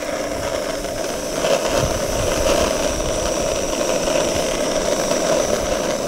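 Handheld gas blowtorch running with a steady, even hiss as it sears slices of raw queenfish.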